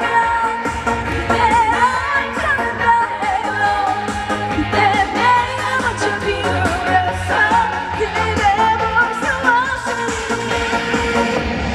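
Trot song performed live: a woman singing a melody with wavering vibrato over a loud backing track with a steady beat.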